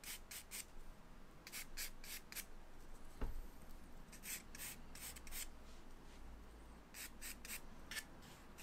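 Charcoal stick scratching across drawing paper in quick hatching strokes, in runs of three to five with short pauses between, as the dark background is built up. One soft low knock about three seconds in.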